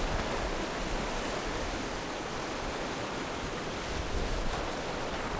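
Sea surf washing and breaking against the granite rocks of a jetty: a steady rushing noise, with wind rumbling on the microphone.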